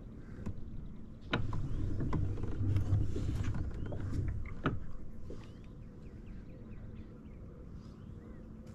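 Handling noise on a kayak: rustling and a few sharp knocks as the angler shifts and moves, loudest between about one and five seconds in. Faint bird chirps follow in the quieter part.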